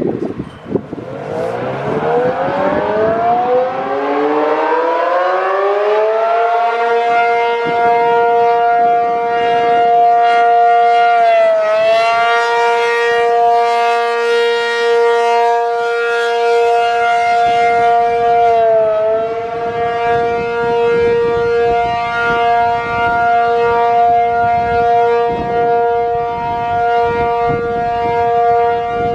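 ACA P-50 outdoor warning siren winding up over about five seconds to a loud, steady two-note chord: the Alert (steady tone) test signal. Its pitch dips briefly twice.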